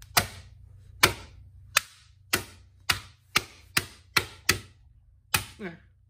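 About ten sharp blows of a hammer on a plastic DVD case lying on a concrete floor. Each is a hard crack, and the blows come faster after the first few.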